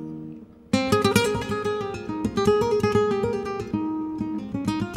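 Acoustic guitar music in a flamenco style: a chord rings away, a short pause, then the guitar comes back in under a second with quick plucked notes and strums.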